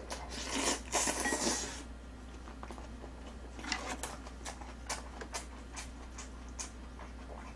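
Close-miked eating sounds: a wet slurp lasting a second or two as a hanging strand of braised aged kimchi is sucked into the mouth, then open-mouthed chewing with soft wet clicks and lip smacks.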